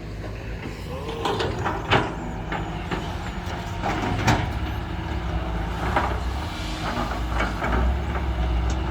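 Heavy diesel engines of a dump truck and an excavator running steadily, with a few sharp knocks about 2 and 4 seconds in.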